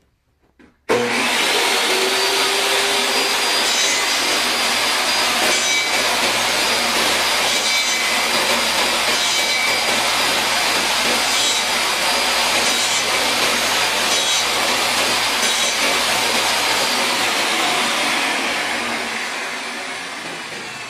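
A table saw is switched on about a second in and runs with a steady high whine, while a wooden tenon is fed against the blade in a jig to round its square corners, giving short repeated cutting sounds. Near the end the saw is switched off and winds down, fading away.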